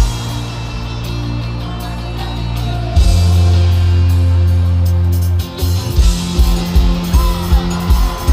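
Live rock-pop band in a stadium concert: a hit on the first beat, then a held, bass-heavy chord that swells louder about 3 s in and drops out about 5.5 s in. About 6 s in the drums come in with a steady beat of roughly two hits a second, with guitar.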